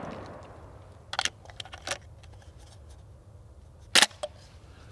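Mechanical clicks and clacks of a High Standard 10B 12-gauge bullpup semi-auto shotgun being hand-loaded between shots, a shell put in and the release button worked: a few light clicks about one to two seconds in and a sharp double clack about four seconds in. The echo of the previous shot fades at the start.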